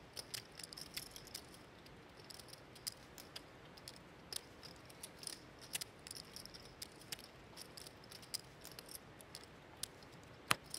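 Poker chips clicking together as they are handled at the table: faint, irregular clicks, a few a second, with one louder click near the end.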